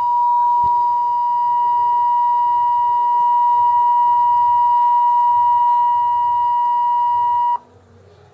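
Nexus 7 tablet's speaker playing a steady test tone of about 960 Hz from a function-generator app, cutting off suddenly near the end.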